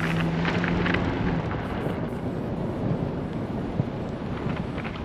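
Steady rumbling road and tyre noise of a car driving on a snowy winter road. A low hum and some higher sounds fade out in the first second and a half, and the rumble slowly gets quieter.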